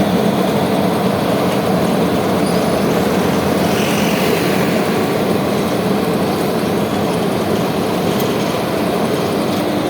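Heavy road-building machinery's engine running steadily, an even, continuous mechanical rumble.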